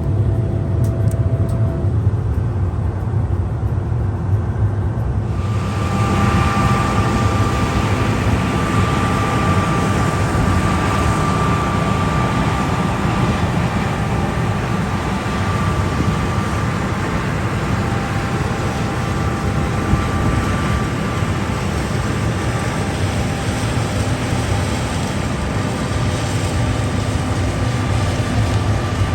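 Combine harvester running in barley: a steady low machine drone. About five seconds in, a louder hissing layer with a steady high whine joins it and carries on.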